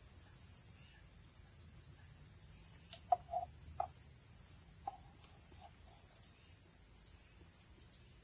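Steady high-pitched drone of insects such as crickets, with a few short, low clucking notes about three seconds in and again near five seconds.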